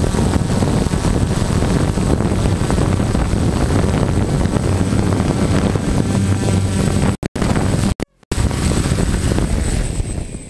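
DJI F550 hexacopter's motors and propellers running, picked up by a camera mounted on the frame with heavy wind buffeting on its microphone and a thin steady high whine. The sound cuts out briefly twice and dies down near the end as the craft sets down on the ground.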